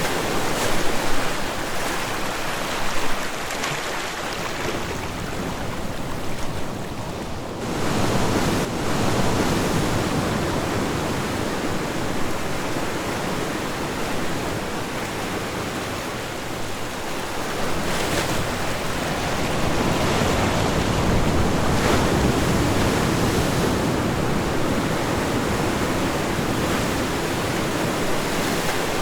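Ocean waves breaking and washing up the shore, a steady rush of surf that swells and eases, with a lull about seven seconds in before the next wave builds.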